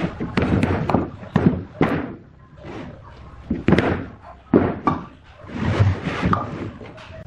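Irregular knocks and thumps, about a dozen spread unevenly over several seconds, typical of wooden workpieces being handled and set down or tapped together at a workbench.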